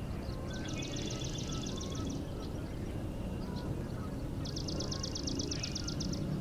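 A songbird singing a rapid, even, high trill twice, each about a second and a half long, among fainter calls of other birds.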